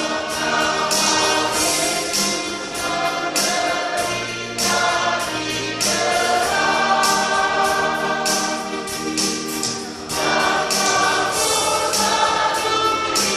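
Church choir singing a hymn in steady, sustained phrases.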